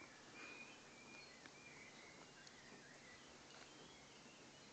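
Near silence outdoors: faint short bird chirps and a few soft scrapes of a dog digging and nosing in loose soil.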